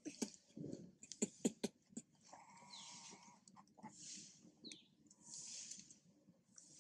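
Faint sounds from a group of long-tailed macaques with babies: a few short high squeaks falling in pitch, soft breathy puffs about every second and a half, and a cluster of sharp clicks in the first two seconds.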